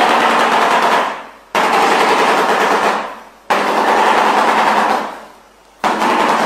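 Shoebill clattering its huge bill in rapid machine-gun-like rattles, in four bouts that each start suddenly and fade away.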